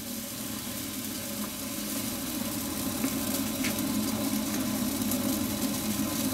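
Cola coming to a rolling boil in a stainless saucepan, stirred with a wooden spoon: a steady bubbling rumble that grows slightly louder.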